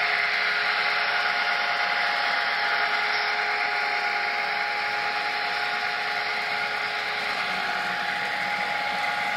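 N scale model hopper train running on the layout's track: a steady rolling rush of small wheels on the rails with a steady hum from the locomotives, one hum tone sliding slowly lower in the second half.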